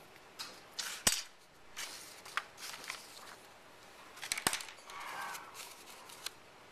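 Handling noise on a drafting desk: two sharp clicks of hard objects set down or knocked, about a second in and again midway, with lighter ticks and paper rustling between them.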